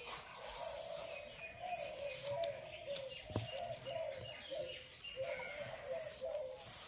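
Hand rubbing and mixing dry wheat flour with spinach paste in an aluminium kadai, a soft dry rustle, with a single sharp click a little past three seconds in. Behind it a bird keeps cooing in short, low repeated notes.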